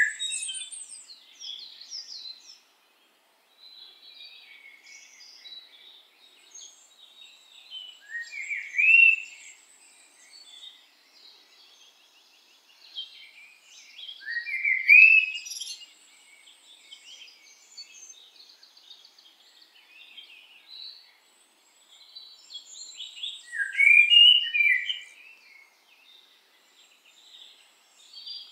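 Wild birds chirping and trilling, several calls overlapping, with three louder rising calls standing out at intervals of several seconds.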